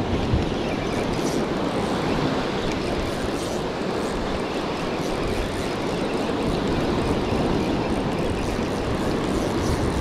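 Surf breaking and washing on a sandy beach, a steady rushing noise, with a brief knock near the start.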